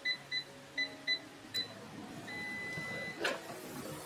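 Cosori air fryer's touch control panel beeping: five short beeps as the buttons are pressed, then one longer beep of about a second. A sharp click follows near the end.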